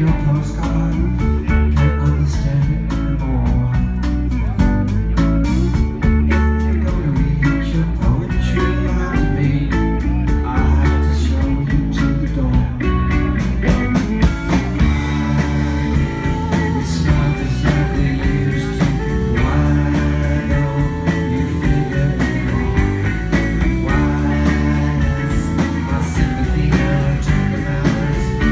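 Live rock band playing a song: electric guitar, electric bass and drum kit, with a steady drum and cymbal beat, heard from the crowd in a club.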